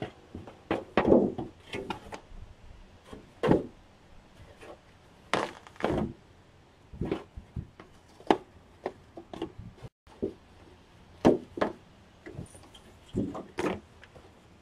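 Irregular knocks and thunks of dishwasher parts and panels being pried, pulled and handled during a teardown, some hits much louder than others.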